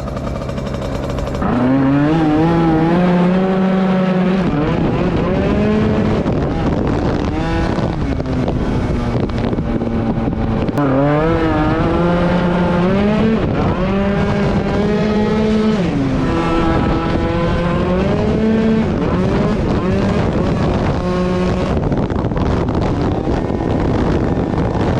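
A tuned two-stroke scooter engine revving hard. It comes in loudly about a second and a half in, then its pitch climbs and holds high, drops off briefly, and climbs again several times.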